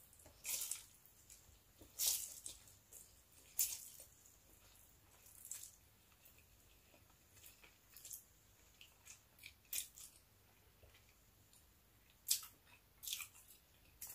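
Close-up eating sounds: stir-fried rice noodles slurped in and chewed, with short wet mouth clicks and slurps every second or two.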